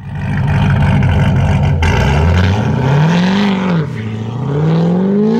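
Chevrolet C7 Corvette's V8 accelerating hard. The engine note climbs, drops at a gear change about three and a half seconds in, then climbs again through the next gear.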